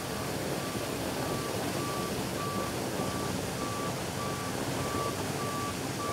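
Water gushing from a sheared fire hydrant, a steady rushing hiss. Over it, a vehicle's backup alarm beeps at one pitch a little under twice a second.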